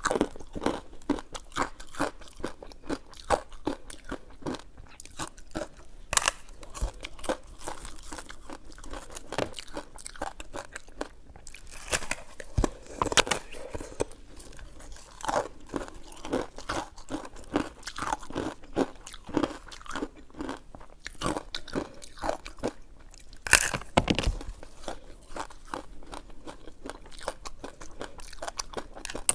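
Close-miked chewing and biting of coconut sticky rice cake. It comes as a dense run of short, sharp mouth clicks and smacks, several a second, with louder bites about halfway through and again near the end.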